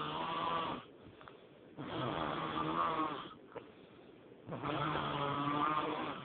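A person snoring in deep sleep. Loud, long snores come about every two and a half seconds, with quiet breathing between.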